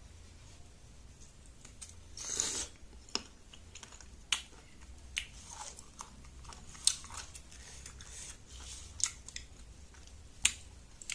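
Close-up eating sounds of fruit rujak being bitten and chewed: a scatter of sharp wet clicks and crunches, with a short rustling burst about two seconds in.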